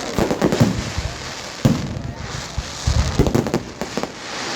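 Fireworks display going off: a string of sharp bangs in irregular clusters over continuous crackling, with the loudest reports about a second and a half in and again near three seconds.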